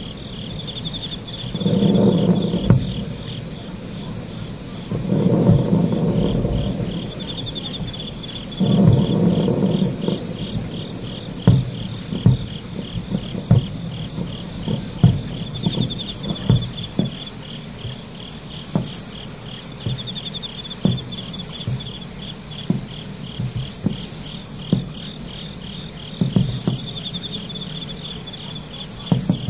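Fireworks shells bursting about 3 km away: long, low rumbling booms in the first ten seconds, then a run of short, sharp pops and thuds. Under them, insects chirp steadily in a fast, pulsing trill.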